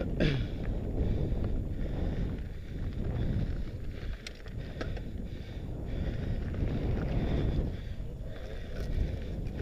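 Wind buffeting the onboard camera's microphone and fat-bike tyres rumbling over a gravel dirt track, with scattered light clicks and rattles. A short falling whine sounds right at the start.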